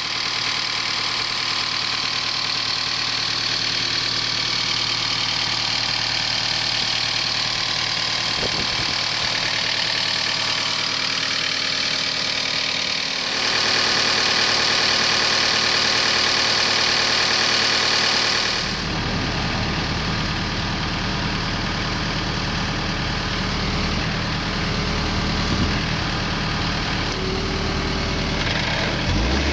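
Diesel engine of a 2016 Takeuchi TB240 mini excavator running steadily. It grows louder about 13 seconds in, and about 19 seconds in the sound shifts lower and deeper.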